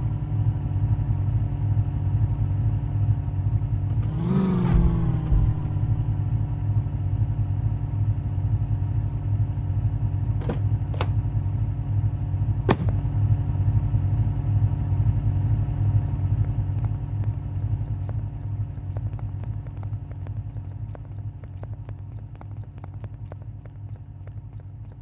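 Land Rover Defender engine running at a steady speed, with a brief swell about four seconds in and a few sharp clicks around the middle; the sound gradually fades over the last several seconds.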